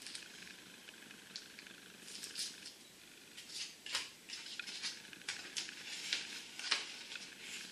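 Clear plastic bag crinkling and rustling in short irregular crackles as a plastic model-kit sprue is pulled out of it and handled.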